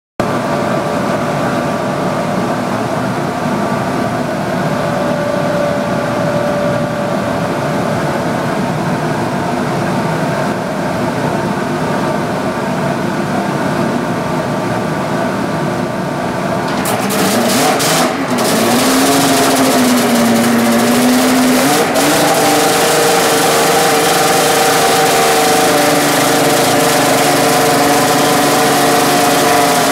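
Turbocharged three-cylinder two-stroke Arctic Cat Thundercat snowmobile engine, built for 516 hp, running steadily at low speed. About 17 seconds in, the throttle opens and the engine runs up louder and higher. Its pitch wavers for a few seconds, then it holds a steady, higher speed.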